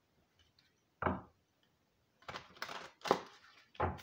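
A few knocks on a wooden surface, about a second in, about three seconds in and again just before the end, with a short spell of rustling and tapping before the second knock.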